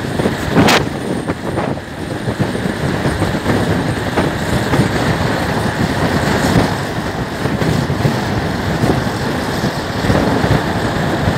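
Riding noise on a moving Suzuki scooter: wind buffeting the microphone over the engine and tyre noise. There is a sharp click a little under a second in.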